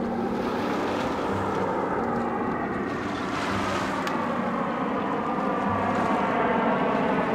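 Saab JAS 39 Gripen fighter jet flying past and turning overhead: a loud, rushing jet noise that grows towards the end, with a slow downward sweep in pitch, over wind and water.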